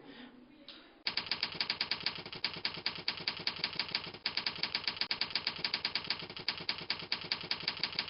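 Typewriter key clatter sound effect: rapid, even keystroke clicks at about ten a second. It starts about a second in and breaks briefly about four seconds in and again near the end, as at line breaks.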